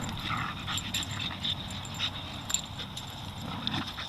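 A dog moving about and making small noises, with scattered light clicks and taps.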